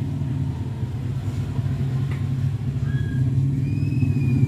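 A steady low mechanical rumble, with a few faint short high tones about three and four seconds in.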